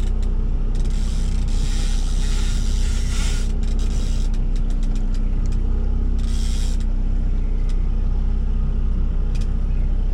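Boat engine running steadily with a low hum, with spells of hiss and a few short clicks over it.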